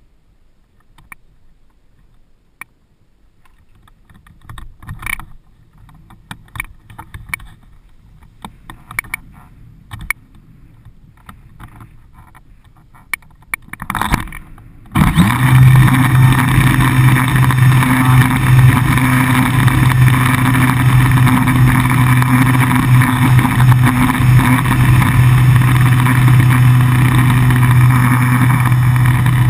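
Faint clicks and knocks from handling for about the first half. Then the ParkZone Radian's electric motor and propeller start suddenly and run at a steady pitch, loud over the camera on the wing, with air rushing past.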